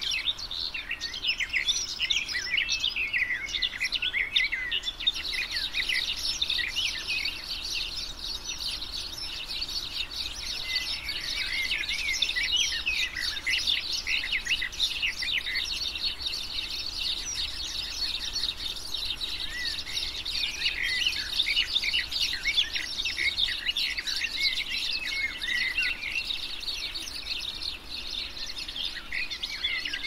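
Many small songbirds chirping and twittering together in a dense, continuous chorus of short, high calls.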